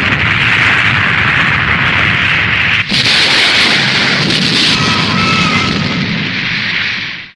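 Tokusatsu explosion sound effect: a sudden, sustained blast that cuts briefly about three seconds in, starts again as a second blast, and fades out near the end.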